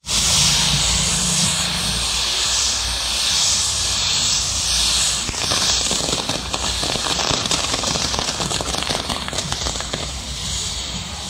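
Fireworks on a castillo pyrotechnic tower burning: a steady loud hiss of fountains and spinning wheels, with dense crackling from about halfway in.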